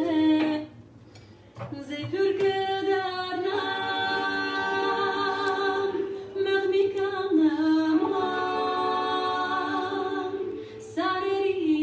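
Singing: a voice holding long, slow notes, with a short break about six and a half seconds in.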